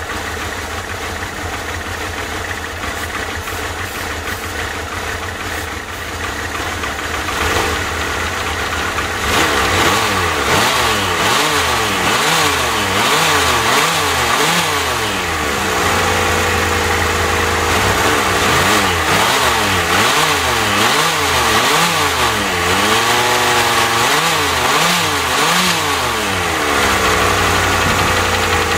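Jeep Grand Wagoneer's carbureted AMC 360 V8 idling, then from about nine seconds in revved up and down again and again in quick blips before settling back to a steady idle near the end. The engine is warm, and its fault is that it idles down and dies after being revved; the owner suspects a vacuum leak at the EGR valve.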